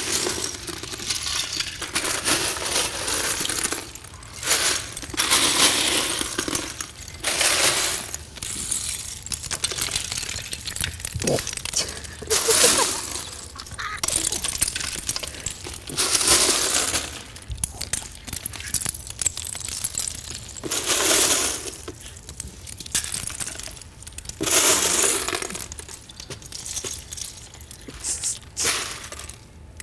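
Loose plastic Lego bricks clattering and scattering in repeated bursts, each about a second long, as a contestant hops barefoot across a course covered in them.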